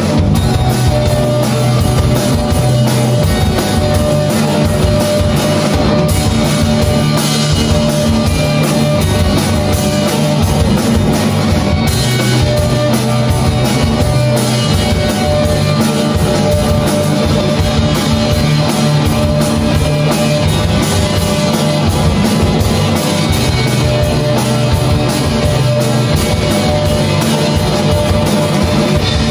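Live rock band playing loudly: distorted electric guitar over a drum kit keeping a steady beat.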